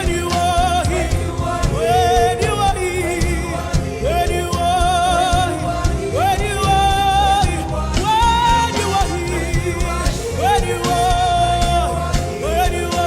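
Gospel worship music: a lead voice holding long notes with vibrato over a band with a steady low beat.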